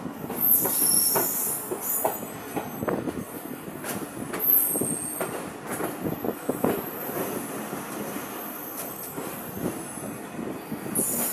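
Passenger train coaches running at speed, heard from on board: the wheels clatter over the track in repeated short metallic knocks. A high-pitched squeal comes in about a second in and again near the end.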